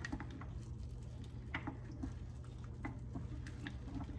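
A spoon stirring a thick tomato-and-bean mixture in a lined slow cooker: wet squishing with scattered light clicks and taps.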